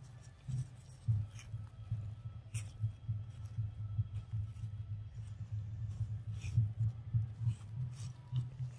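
Dry leaf litter crackling in a few short snaps at irregular moments, over a low, pulsing rumble that runs throughout.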